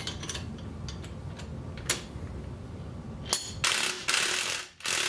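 Small metal clicks and clacks of a hinged tractor-flap exhaust rain cap being flipped and handled on a hood stack, with one sharper click about two seconds in. Near the end comes a loud burst of rushing noise lasting about a second and a half.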